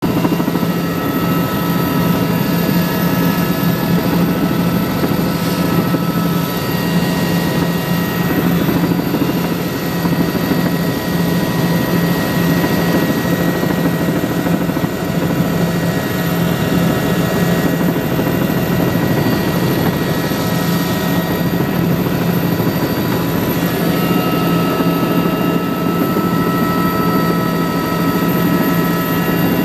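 Helicopter in steady cruise flight, heard from inside the cabin: a constant low drone with several steady whining tones above it.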